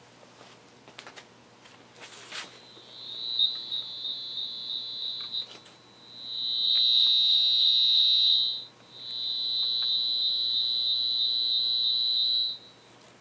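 Circuit breaker tracer receiver's audible indicator giving a high-pitched tone in three spells of differing loudness as it is held to different AC cords, the loudness showing how much of the tracer's injected noise is on each cord; the middle spell is the loudest. A few handling clicks come before it.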